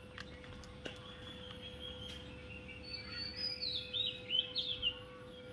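Bird chirping: a quick run of short, high chirps in the second half, over a faint steady hum.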